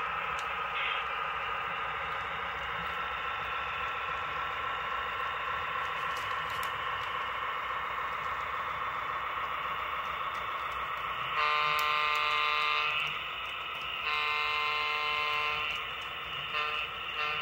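A model train locomotive's sound system running steadily as the train pulls out, then sounding its horn: two long blasts about two-thirds of the way in, and short toots near the end.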